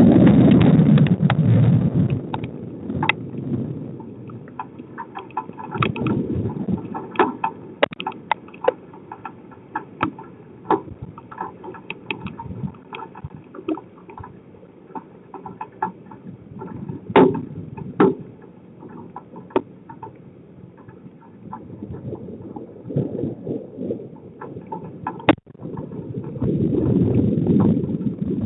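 Storm wind buffeting a driveway security camera's microphone in gusts, heaviest at the start and again near the end, with irregular sharp taps striking the camera between the gusts.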